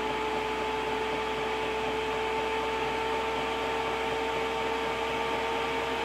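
Chinese diesel air heater's blower fan running up to full speed: a steady whine over a haze of moving air, creeping slightly higher in pitch as the fan speeds up. This is the heater's warm-up stage after ignition, with fan and fuel pump being run up to their maximum rate.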